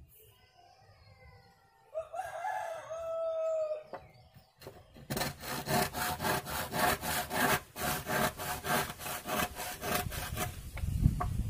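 A rooster crows about two seconds in. From about five seconds in, a hand saw cuts through wood in quick, even strokes, about three a second.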